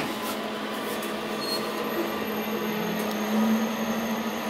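KONE passenger elevator car travelling down: a steady mechanical hum with thin high whines, the low hum growing stronger about three seconds in.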